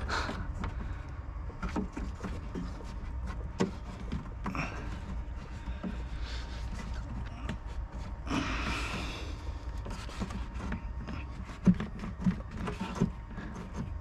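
Handling noise from working loose a plastic interior trim panel with a pry tool: scattered light clicks and knocks, with a longer scraping rustle about eight seconds in and a couple of sharper knocks near the end.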